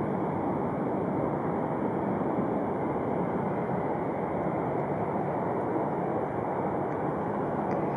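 Widebody twin-engine jet airliner accelerating down the runway at takeoff thrust: a steady rush of jet engine noise.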